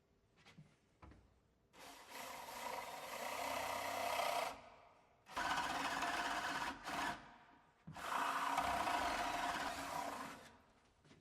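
Power drill with a flat (spade) bit boring into the edge of a timber door, in three runs of a few seconds each with short pauses between.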